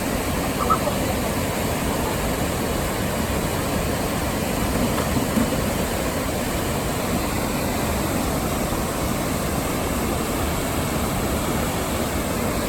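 Fast, turbulent river water rushing steadily over rocks, an even roar that holds the same level throughout.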